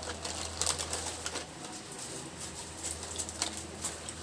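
Crunchy snack being chewed close to the microphone: a string of sharp crunches and wet mouth clicks, bunched in two spells with a lull between.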